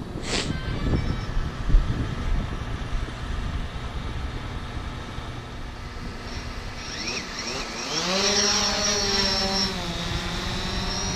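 Quadcopter drone's motors spinning up and lifting it off: a propeller whine that rises in pitch about eight seconds in and holds as it hovers. Earlier, rough handling noise on the microphone with a knock at the start and a louder thump about two seconds in.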